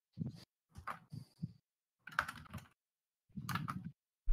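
Computer keyboard being typed on in several short bursts, with a dull, heavy thump right at the end.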